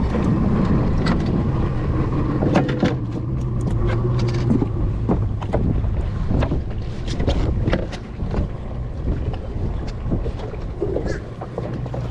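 Small boat on open water: wind buffeting the microphone and water rushing over a steady low hum that drops off about eight seconds in, with scattered knocks and clatter on the fibreglass hull.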